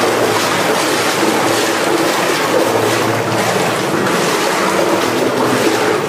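Steady sloshing and splashing of shallow water around the legs of a person wading through a narrow rock-cut water tunnel, without a break.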